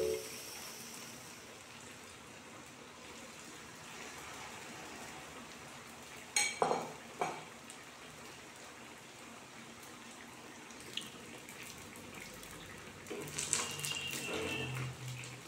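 Banana fritters deep-frying in hot oil in an iron kadai, a steady soft sizzle. A few knocks come about six seconds in, and near the end a metal slotted skimmer clinks against the pan.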